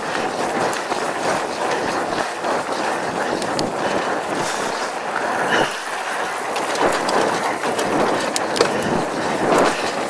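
Mountain bike (Mongoose Tyax) rolling along a sandy dirt track: steady tyre noise on the dirt, with frequent small clicks and rattles from the bike over the bumps.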